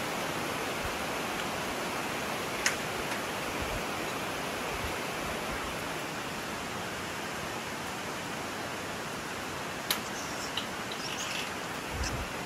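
Steady rushing rainforest ambience. A sharp click comes about three seconds in and another near the end, and a few short high chirps are heard near the end.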